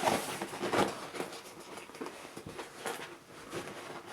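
Rustling of a nylon rucksack and short knocks of a stiff plastic sit-plate being pushed back into its sleeve under the flap, a tight fit.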